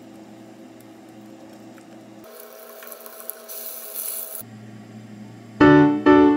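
A silicone spatula stirs and scrapes eggplant batter in a glass bowl. About two seconds in, oil sizzles as eggplant patties fry in a pan. Near the end, loud keyboard music with a beat starts.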